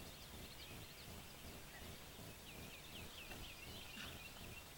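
Faint birdsong: two quick runs of short, high chirps, each lasting about a second, over a low steady rumble.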